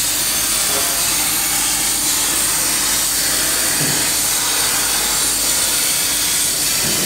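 CNC plasma cutting torch cutting through steel plate: a loud, steady hiss of the arc and gas jet with the spatter of sparks.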